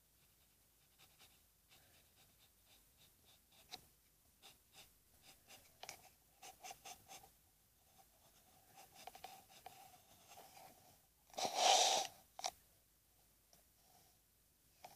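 Pencil scratching on paper in many short strokes as lines are drawn. About three-quarters of the way through, a louder noise lasting about a second stands out over the strokes.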